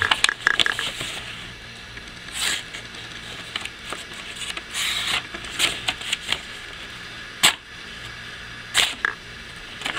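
A Leatherman C33Lx folding knife's blade slicing through sheets of paper in several short, separate cuts a second or two apart. The loudest cut comes about seven and a half seconds in.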